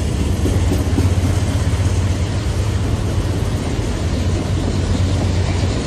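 Freight train of enclosed autorack cars passing close by: a steady, loud rumble of wheels on rail with a deep low hum.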